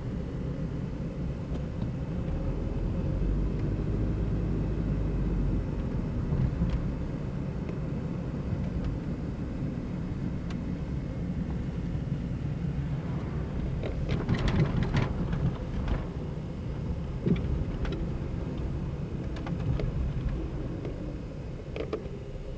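Steady low engine and road rumble heard from inside a moving car, with a few short knocks and clicks in the second half.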